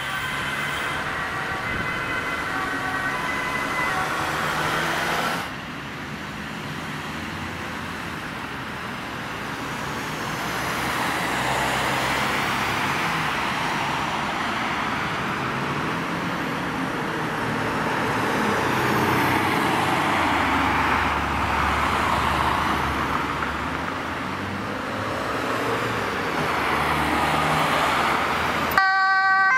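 An ambulance's two-tone siren alternating between two notes for the first few seconds, then road traffic passing. Near the end a loud two-tone siren starts suddenly as the fire engine pulls out on an emergency call.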